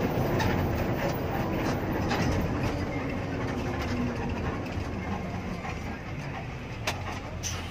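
Inside an intercity bus cruising on the highway: a steady rumble of engine and tyre noise filling the cabin, with two sharp clicks near the end.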